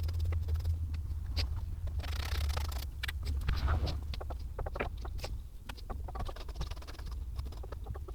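Scattered small clicks and scrapes of a bolt being put back in and another taken out on a Harley's front fairing, over a steady low hum.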